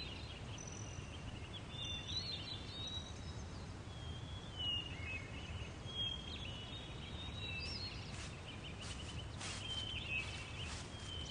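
Outdoor ambience: wild birds chirping and whistling over a faint, steady low rumble, with a few soft clicks late on.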